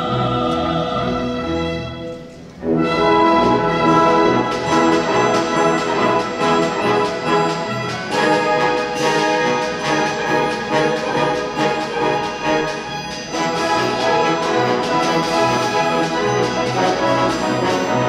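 Orchestral background music with brass, dipping briefly about two and a half seconds in, then swelling back and carrying on.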